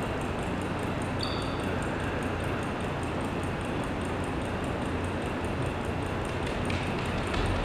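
Steady background hiss of a large, high-ceilinged hall, with a short high ping about a second in and a few faint taps near the end.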